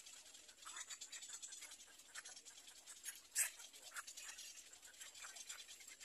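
Faint scratchy clicks and rustling from little egret chicks in their stick nest, with one sharper click about three and a half seconds in, over a faint high hiss.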